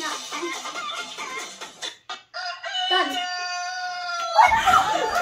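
Chicken clucking in short choppy bursts, then a single long rooster crow a little after halfway, followed near the end by a loud burst of laughter.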